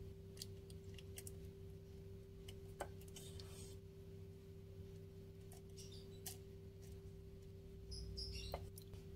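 Faint scattered clicks and scrapes of a wooden spatula scooping thick cooked cendol batter from a metal pot into a plastic bag, over a steady low hum.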